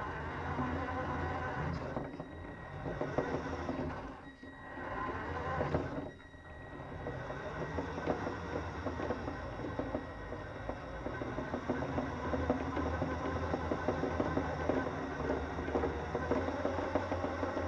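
Radio-controlled toy Mini Cooper S running, its small electric motor and gears making a fast, rattling chatter that drops briefly about four seconds in and again about six seconds in. The car has a knocking noise as it goes along, which the owner puts down to the suspension bottoming out or hitting the bodywork as the back end bounces.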